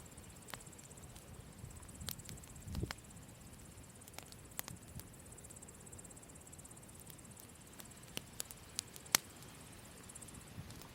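Campfire burning, the wood giving off scattered sharp crackles and pops, with a dull thump near 3 seconds. A steady high-pitched trill runs behind it and stops near the end.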